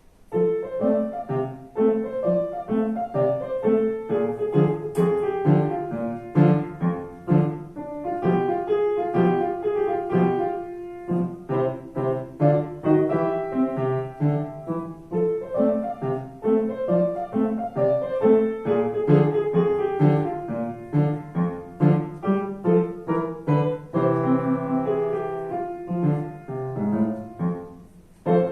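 Yamaha JNC1 piano played solo: a flowing melody over struck chords. Near the end a held low chord dies away.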